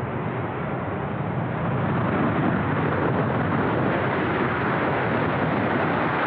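Boeing 747-400F's four jet engines and airframe giving a broad roar as the freighter touches down and rolls out along the runway. The noise swells over the first two seconds, then holds steady and loud.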